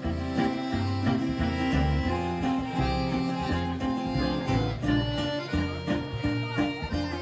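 Live acoustic band playing an instrumental break: accordion, guitars and a double bass walking a steady bass line under sustained melody notes.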